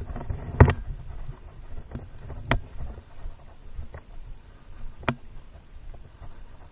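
Several sharp snaps a second or two apart, the loudest about half a second in, over low rustling and handling noise.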